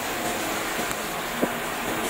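Steady background noise, an even hiss-like hum, with one short click about one and a half seconds in.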